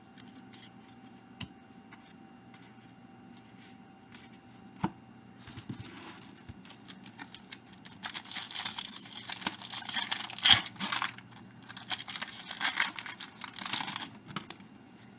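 A baseball card pack wrapper being torn open and crinkled, in two spells of loud crackling through the second half, after a few light clicks of cards being handled.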